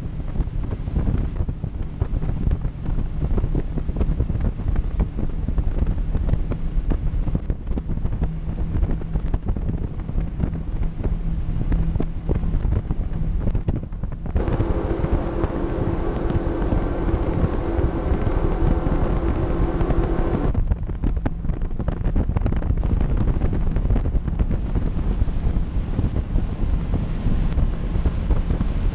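Four Mercury 600 hp V12 Verado outboards running the boat at speed under a heavy rush of wind buffeting the microphone, with a steady low engine drone underneath. About halfway through, a clearer, higher-pitched engine whine comes in abruptly for about six seconds, then cuts out just as suddenly.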